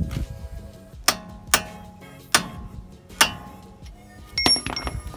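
A hammer strikes a steel punch held against the end of a front CV axle, driving it out through the wheel hub. There are four sharp, ringing metal blows spaced roughly half a second to a second apart, then a few lighter metallic clinks near the end.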